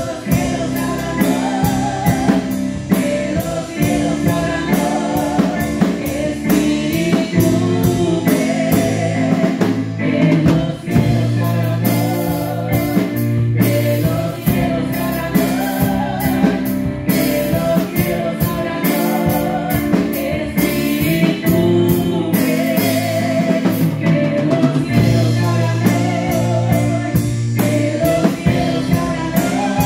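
Live worship music: several voices singing together over a drum kit and band, with a steady beat.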